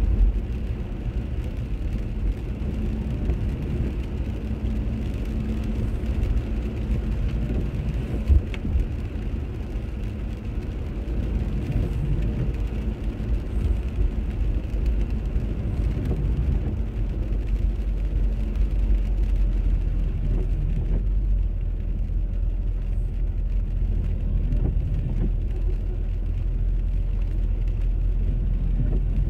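Car driving on a wet road, heard from inside the cabin: a steady low engine and road rumble with a hiss of tyres on the wet surface. A single knock sounds about eight seconds in, and the hiss drops off about two-thirds of the way through.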